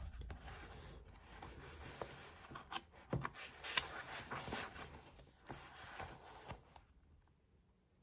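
Paper rustling and handling: a string of small scrapes and ticks that dies away about seven seconds in.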